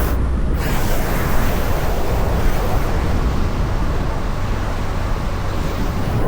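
Steady engine and road noise inside a small car's cabin as it drives up a steep hill.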